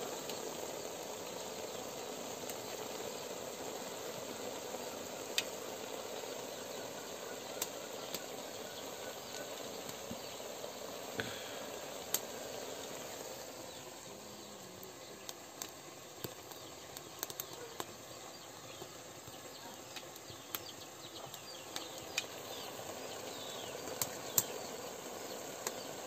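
A steaming pot over an open wood fire: a steady hiss with scattered sharp crackles from the burning wood.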